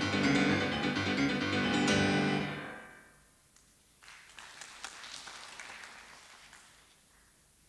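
Grand piano playing a loud, dense, fast passage that breaks off about two and a half seconds in and rings away. After a short hush, a few seconds of faint noise with small clicks follow.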